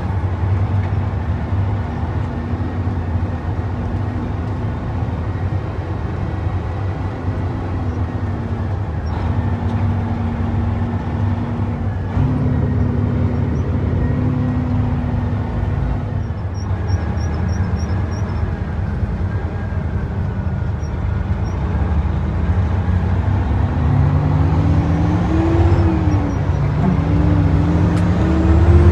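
Heavy diesel truck engine running under way, heard from inside the cab with road noise. Its note climbs near the end, dropping once in between as it changes gear.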